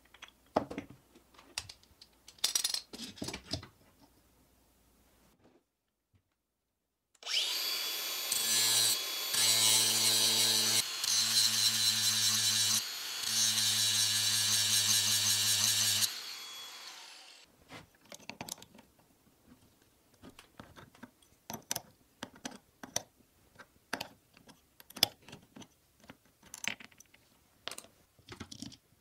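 Angle grinder with an abrasive disc grinding down the axle nut and bolt end of a steel caster wheel. It runs with a steady whine and grinding hiss for about nine seconds, easing off briefly a few times, then spins down. Small clicks and knocks of the caster being handled come before and after.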